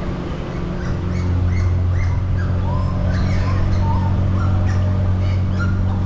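A longboat's motor running at a steady low hum, with many songbirds chirping and whistling in short calls over it throughout.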